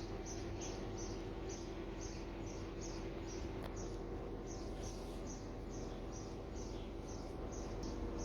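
A steady series of short, high chirps, about three a second, pausing briefly around the middle, over a low steady background.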